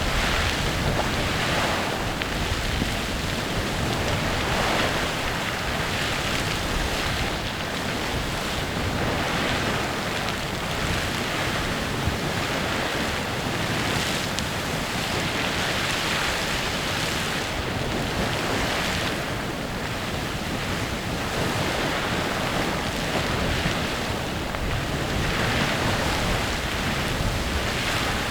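Clepsydra Geyser erupting: a continuous rush of splashing water and hissing steam that swells and eases unevenly every few seconds.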